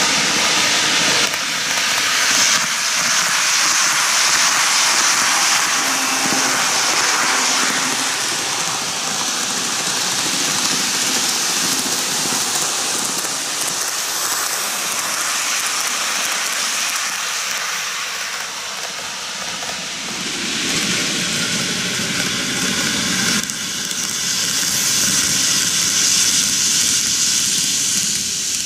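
N-gauge model trains running on TOMIX canted track, the yellow Microace Kintetsu 23000 series Ise-Shima Liner among them: a steady hissing rumble of small wheels on the rails and the motor car's drive, swelling and easing as the train comes round near the camera.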